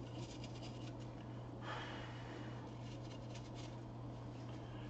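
Short bursts of scratchy rubbing as flux residue is scrubbed off a laptop logic board, with a pause and a brief hiss between them, over a steady low hum.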